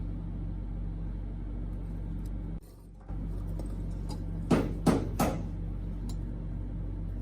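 Steady low hum, with three short handling or tapping sounds about two-thirds of the way in.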